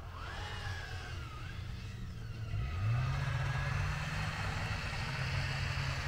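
Snowmobile engine running as the machine crosses a snowy slope. About two and a half seconds in it revs up, and it holds the higher pitch after that.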